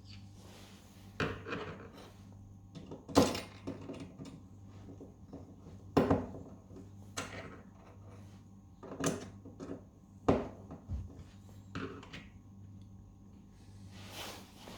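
Scattered sharp knocks and clicks of a kitchen cabinet door and its metal hinge being handled and worked on, the loudest about three and six seconds in.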